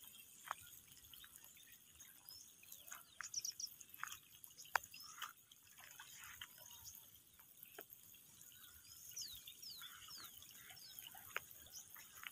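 Faint outdoor ambience in light rain: scattered drips and sharp ticks, with short high bird chirps, a few of them falling in pitch about nine seconds in.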